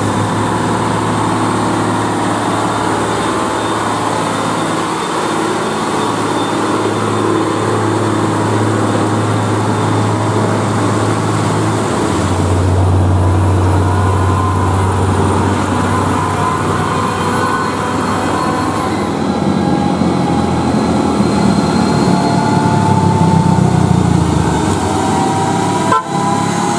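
UD Quester GWE 370 tractor-trailer trucks with the 370 hp GH11E diesel engine running and pulling past at close range, heard in a few short clips joined by cuts. In the later part the engine note rises steadily as the truck accelerates, and a sharp cut comes just before the end.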